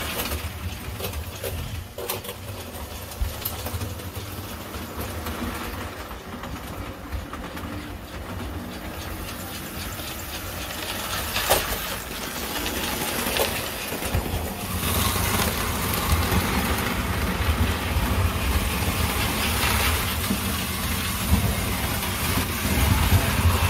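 American Flyer S gauge model trains running on the layout: a steady motor hum and wheel noise on the track, with occasional clicks, growing louder in the second half as trains pass close by.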